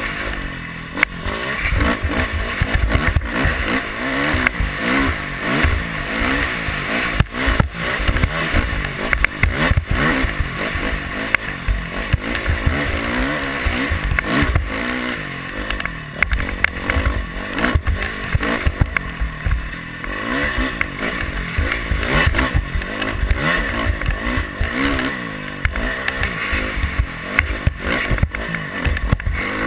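Off-road motorcycle engine revving up and down as the rider works the throttle along a sandy trail, with wind buffeting the camera microphone and occasional knocks from bumps.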